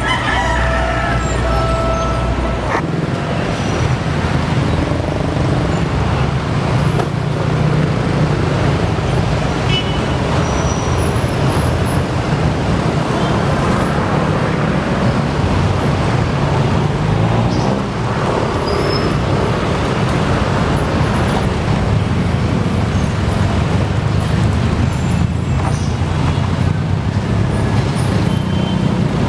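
A diesel train's horn holds one steady tone over a low rumble, cutting off about two and a half seconds in. Then a diesel train engine hums steadily, with traffic noise around it.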